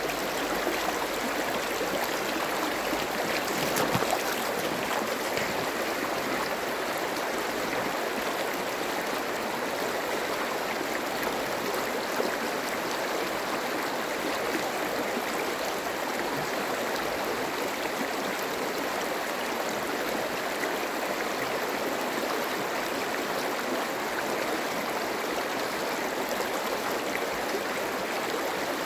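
Shallow stream running steadily over pebbles and stones, a continuous rushing, splashing flow of water.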